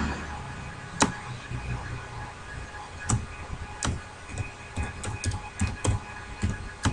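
Clicks of a computer keyboard and mouse: a few separate clicks over the first few seconds, then the irregular, quicker keystrokes of typing from about four and a half seconds in.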